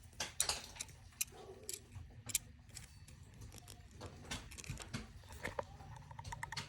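Irregular light metallic clicks and ticks from snap ring pliers and a steel snap ring being handled, as the ring is opened and seated on the plier tips.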